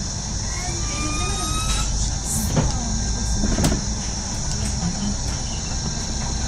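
Cabin of a Mercedes-Benz Citaro G articulated diesel bus under way: steady engine and road rumble with a faint rising whine a second or so in, and two sharp knocks or rattles in the middle.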